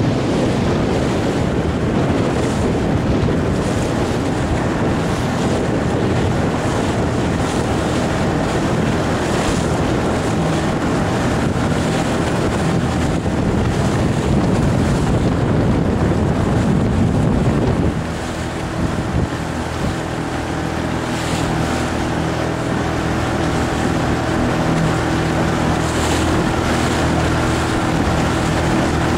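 Wind buffeting the microphone over choppy water and splashing waves. About eighteen seconds in the wind noise eases and a steady motorboat engine hum comes through under the water sound.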